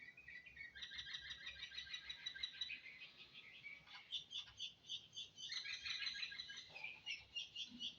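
Baby birds chirping: a rapid stream of high, thin peeps that grows dense and continuous about a second in.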